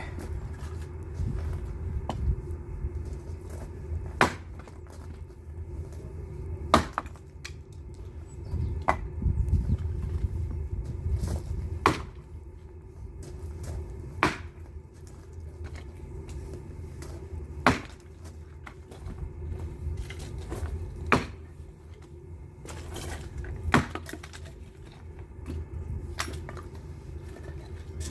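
Firewood being chopped: sharp strikes on wood every two to three seconds over a steady low hum.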